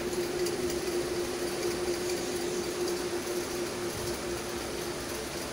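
Steady mechanical background hum with one held tone that weakens about four seconds in.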